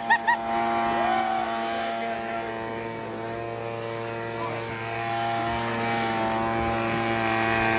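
An engine running at a steady speed, a constant drone that eases off a little in the middle and swells again near the end.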